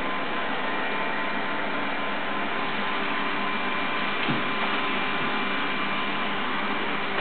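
Steady hiss of background noise, with a single short hiccup about four seconds in.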